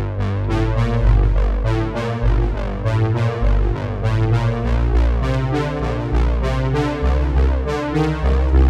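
Background music: a synthesizer keyboard tune over a heavy bass line with a steady beat.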